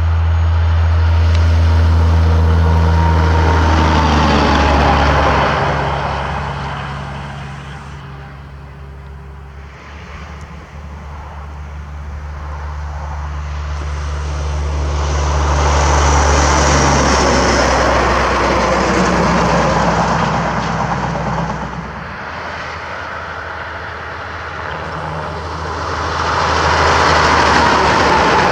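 Diesel semi-trucks passing by one after another. Each one's low engine drone and tyre roar swell as it nears and fade as it goes, with the loudest passes near the start, about sixteen seconds in and near the end.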